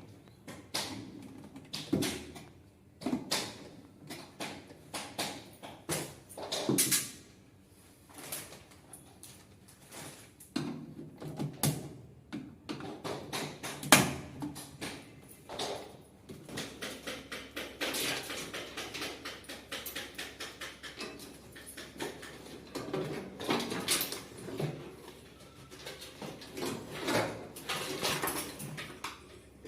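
Irregular clicks, taps and plastic rattles of hands working a washing machine's electronic control board loose from its housing, with a sharp knock about fourteen seconds in.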